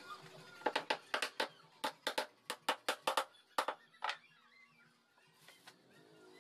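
Claw hammer striking nails into a plywood speaker-box panel: a quick, irregular run of sharp taps in the first four seconds, then it stops.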